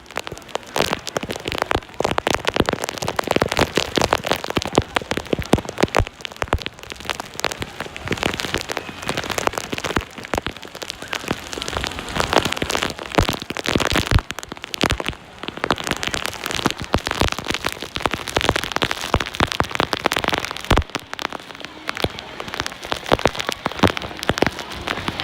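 Heavy typhoon rain, with a dense, irregular patter of drops striking close to the microphone.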